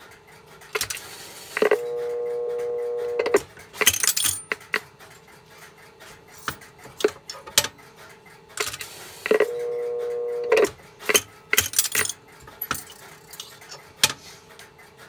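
Clicks and metallic rattling of a Western Electric 1234G payphone's handset, switchhook and coin relay being worked by hand. A steady tone on the line sounds twice through the monitor speaker, each time for about a second and a half. A sharp click near the end as the handset is hung up.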